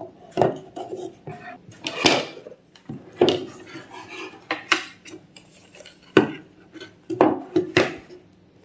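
Solid wooden parts of a folding table knocking and clattering against each other and against a wooden tabletop as the table is taken apart and its slatted top folded up. About a dozen sharp, irregular knocks, the loudest about two seconds in, with light wood-on-wood rubbing between them.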